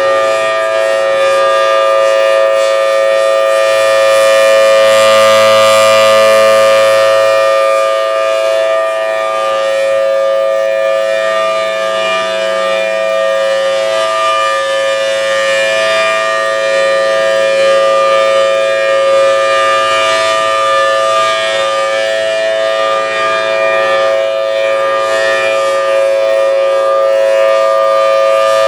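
1983 Federal Signal Thunderbolt civil defence siren sounding a steady, unwavering tone, the Alert signal. Its loudness swells and eases slowly, and other outdoor warning sirens sound a similar steady tone in the background.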